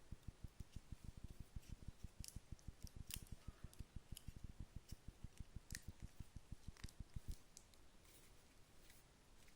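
Small homemade Mendocino motor running, its levitated rotor making a fast, even beat of faint low thumps with a few sharp clicks. The beat stops suddenly near the end as the rotor is halted.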